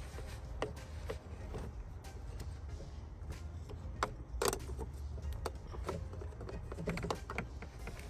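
Scattered clicks, knocks and clinks of hands working an air filter cone onto its metal adapter pipe and band clamp, with the sharpest knock about halfway through, over a low steady rumble.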